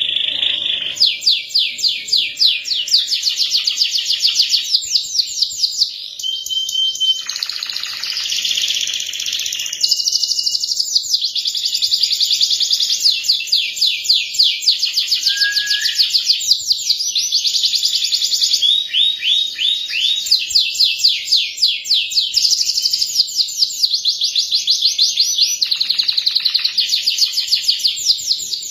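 Domestic canary singing without a break: long, fast trills and rolls of rapid repeated notes, broken now and then by a short, clear whistled note.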